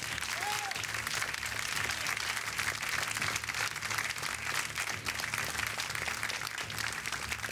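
Studio audience applauding steadily, with one short cheering voice about half a second in.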